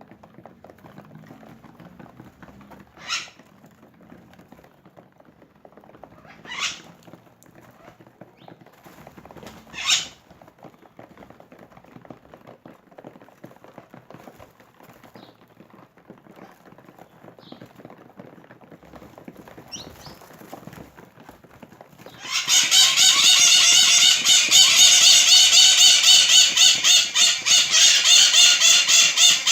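Birds calling: three short, sharp calls a few seconds apart, then a few fainter ones. About twenty-two seconds in, a loud, continuous pulsing buzz starts and lasts about seven seconds.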